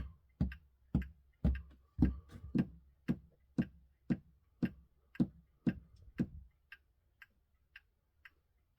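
1970s Seiko day-date clock movement ticking, an even tick-tock about two beats a second, heard as in beat. The ticks grow fainter after about six seconds.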